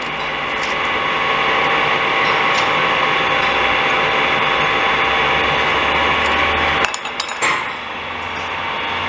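Steady machine running noise with a faint hum, which drops about seven seconds in; then a cluster of sharp metallic clicks and knocks as the lathe chuck is loosened to release the machined tensile test sample.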